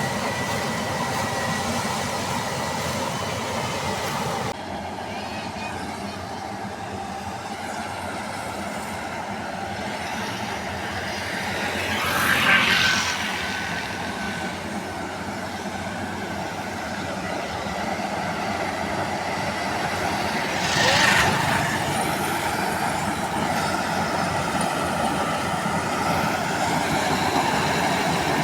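Combine harvester running steadily, a continuous machine drone with steady tones. It drops abruptly in level about four seconds in and swells louder twice, briefly, about twelve and twenty-one seconds in.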